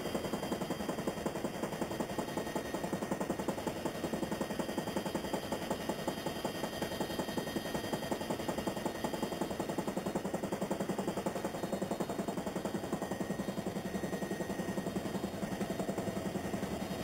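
Huey helicopter running in flight, heard from inside the open cabin, with the rotor beating in a steady, rapid pulse.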